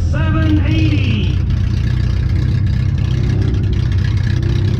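A compact demolition derby car's engine running loudly and revving, heard from inside the car.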